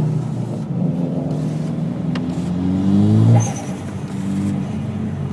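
Turbocharged four-cylinder car engine accelerating hard: the revs climb for about two seconds, peak just past the middle and drop sharply, then the engine runs on steadily.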